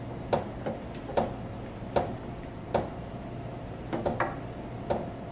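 A spoon stirring thick cream sauce in a stainless steel saucepan, giving irregular light clicks and taps against the pan, about one or two a second, over a steady low hum.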